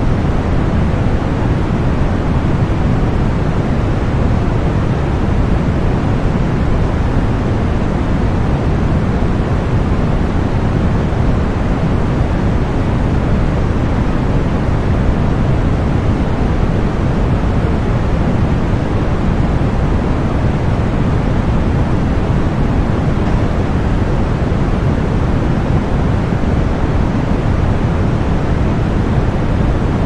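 Steady tinnitus-masking white noise: an even, unchanging rushing hiss, heavier in the low end than in the highs.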